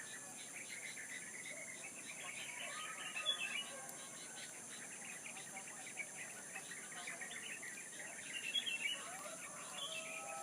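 Several small birds chirping and twittering in quick, overlapping notes, busiest about a third of the way in and again near the end, over a steady high-pitched insect drone.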